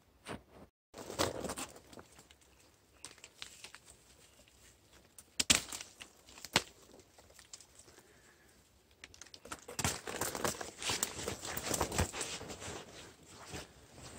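Dry fallen leaves rustling and crackling as someone moves through the leaf litter and handles plants. There are two sharp snaps about five and a half and six and a half seconds in, and a denser stretch of crackling in the second half.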